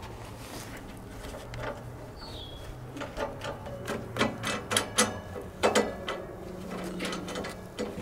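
Sharp clicks, knocks and metal rattles of hand-worked fasteners on the side access panel of a Baumalight mini skid steer as it is being unlatched, most of them between about three and six seconds in.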